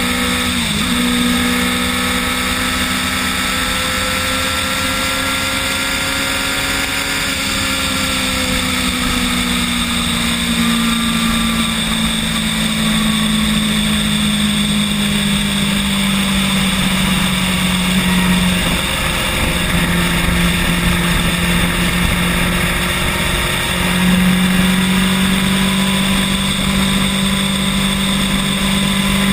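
Bird electric rental scooter being ridden: a steady motor whine whose pitch drifts slowly up and down with speed, over a constant low rumble of wind and road noise.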